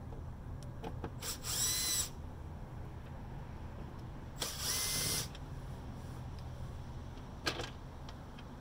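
Cordless drill-driver whirring in two short bursts of about a second each, the motor whine rising as it spins up, backing out the screws of the inverter's wiring-box cover. Faint clicks, and one short sharp knock near the end.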